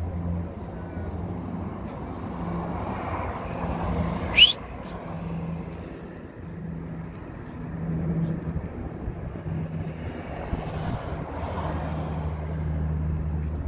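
Steady propeller drone of a twin-engine Canadair water-bombing plane flying overhead, swelling and fading as it passes. About four and a half seconds in there is a brief rising squeal that ends in a sharp click.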